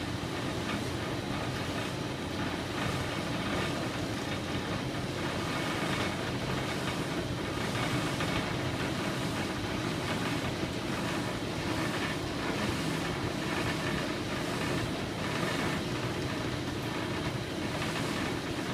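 A steady low mechanical rumble with an even noisy texture, unchanging in level.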